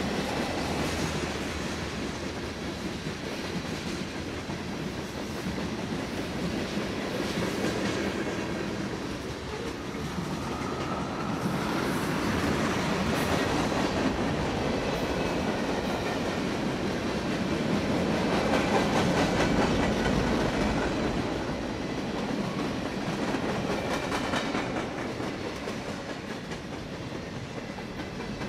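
Freight train cars rolling past: a steady rumble of steel wheels on rail with scattered clicks over the rail joints, swelling and easing as the cars go by.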